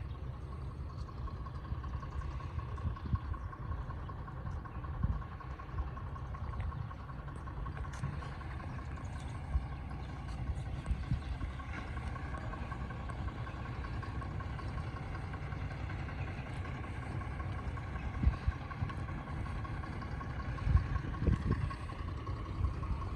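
An engine running steadily, with a constant whine over a low rumble, and wind gusting against the microphone, strongest near the end.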